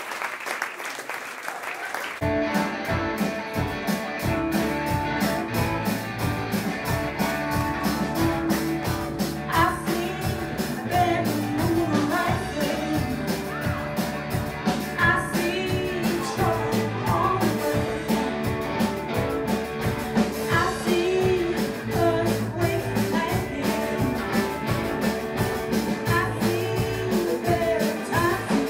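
Live rock band playing: applause for about two seconds, then the drums, bass and electric guitar start up, and a woman's singing comes in about ten seconds in.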